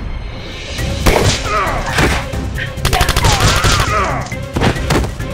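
Gunfire sound effects: single shots and a rapid burst of shots with whistling glides between them, over an action music track.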